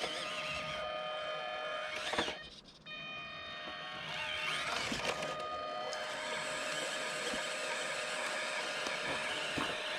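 Electric motor and gearbox of an RC rock-crawler truck whining steadily under throttle. It cuts out briefly about two and a half seconds in, just after a sharp knock, then picks up again.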